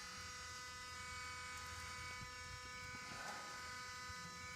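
Steady electric hum with a whine of several high tones from under a 2016 Ford F-250 Super Duty after it has been shut off, loudest around the oil filter. The owner hopes it is the emissions purge system running as it is supposed to.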